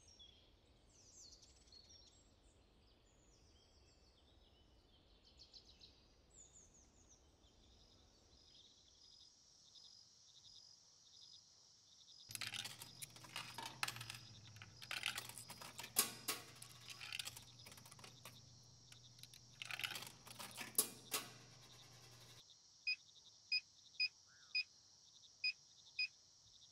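Outdoor nature ambience. Birds chirp at first and give way to a steady high insect drone as dusk turns to night. In the middle comes about ten seconds of loud irregular rustling and crackling over a low hum, and near the end a regular high-pitched pulse about twice a second.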